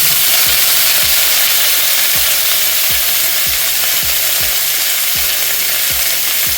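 Wet pork pieces, just blanched and rinsed in warm water, sizzling loudly in hot oil with ginger in a pan.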